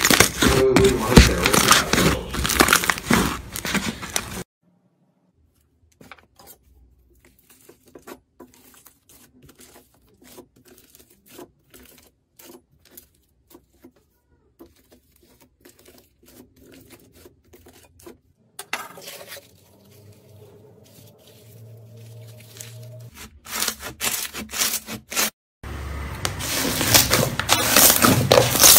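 Thick fluffy slime squeezed and pulled apart by hand, giving a loud, dense crackling and popping. Through the middle, a knife cuts a crumbly white block, heard as quieter rapid small clicks and crunches. Loud slime squishing returns near the end.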